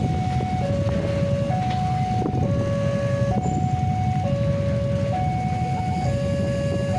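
Railway level-crossing warning alarm sounding a steady two-tone alternation, high then low, each tone just under a second, over the low rumble of idling motorcycle engines.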